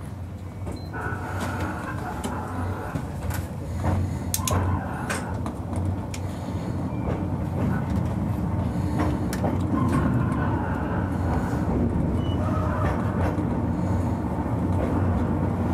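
Ikawa Line narrow-gauge train running on the track: a steady low hum with scattered clicks from the wheels and running gear, growing louder over the first few seconds.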